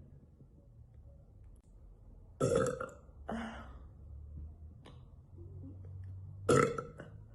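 A woman belching loudly twice, about two and a half seconds in and again near the end, with a softer sound just after the first.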